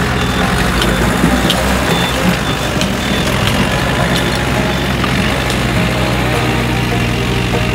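Diesel engines running steadily as a small dump truck reverses into place close by, with a Komatsu PC58 mini excavator running beside it.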